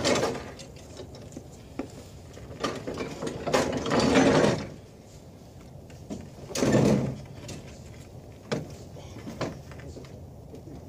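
Riding mower being pushed by hand up wooden loading ramps into a pickup bed: rattling and clunking of the mower and ramps in three loud bursts, with scattered sharp knocks between them and quieter knocks near the end.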